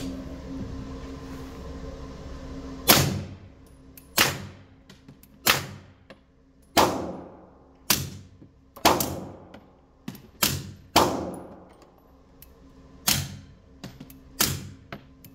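Suppressed 9mm pistol, an FN 509 wearing a YHM R45 suppressor, firing subsonic Hush ammunition. About ten shots come one to two seconds apart starting about three seconds in, each a sharp report with a short echoing tail off the range walls.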